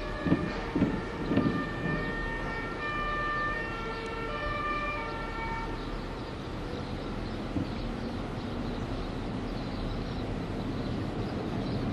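Distant two-tone emergency siren alternating between its two pitches for about the first six seconds, over a steady low rumble. A few low bumps in the first second and a half.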